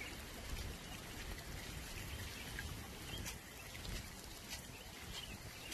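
Floodwater running over a yard and pavement in a steady, low rush, with a few faint bird chirps.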